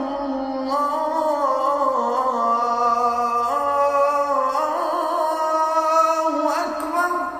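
Background vocal music: a slow melody sung in long held notes that step gently up and down.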